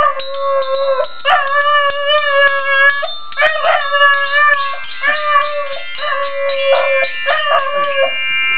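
A terrier howling along to a glockenspiel: a series of long, wavering howls, each held for a second or two, over the ringing tones of the metal bars as they are struck with a mallet.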